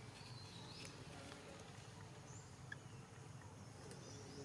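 Quiet outdoor ambience: a faint steady low hum with a few brief, faint high chirps scattered through it.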